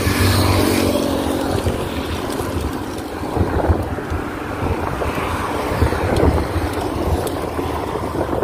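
Wind buffeting the microphone of a phone mounted on a moving bicycle, mixed with road traffic; a passing vehicle's engine hum fades out in the first second and a half.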